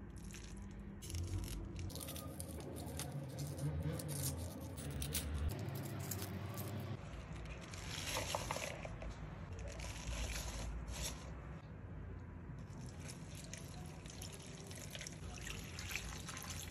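Water running and splashing into a plastic bowl of çiriş (Eremurus) shoots, with scattered clicks and rustles from the leaves being handled.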